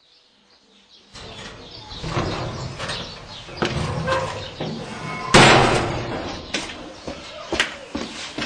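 Blue painted sheet-metal door being handled, with knocks and rattles from about a second in and one loud bang about five seconds in.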